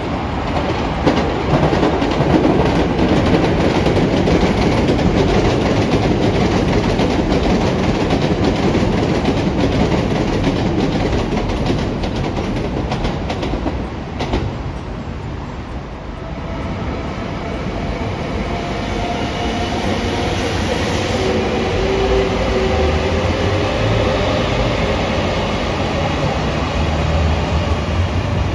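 A train running past on the rails: wheels clattering over the track in a dense rattle, easing about halfway through, after which several steady pitched tones ring over a lighter running noise.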